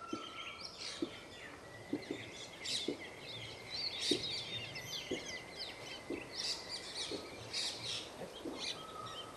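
Wild birds chirping and calling in forest, over soft regular thuds about once a second from the footsteps of several people walking along a path through undergrowth. A thin, steady high tone holds for several seconds in the middle.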